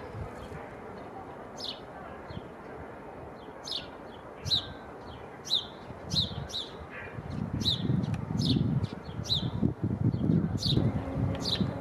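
A bird chirping over and over, short falling chirps about once a second, over a choppy low rumble that swells about halfway through.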